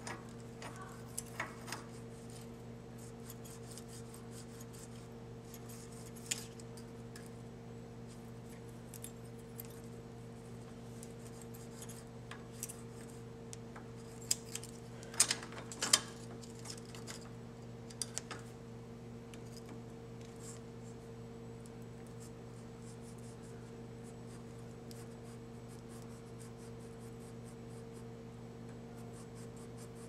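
Sparse light metallic clicks and scrapes of a wrench, screwdriver and feeler gauge working the rocker-arm adjuster of a Briggs & Stratton Intek V-twin overhead valve while the lash is set to five thousandths, with a cluster of sharper clicks around the middle. A steady low electrical hum runs underneath.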